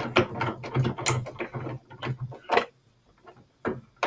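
A ratcheting hand screwdriver clicking in quick runs as screws are turned into a plastic cart shelf, with a short pause before a few more clicks near the end.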